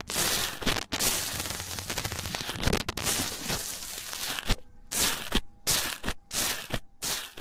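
Crunchy slime being squeezed and pressed by hand, giving a dense crackling crunch. The crunch runs almost unbroken at first, then from about four and a half seconds in comes as several short bursts with brief pauses between them.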